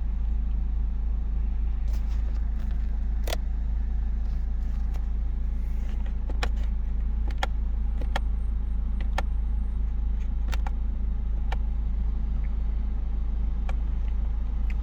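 Nissan Qashqai's engine idling steadily, with about nine short, sharp clicks at uneven intervals from dashboard menu buttons being pressed.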